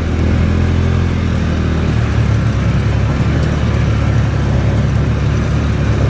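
UTV engine running as it drives along a dirt track, heard from inside the cab. Its note rises a little about two seconds in.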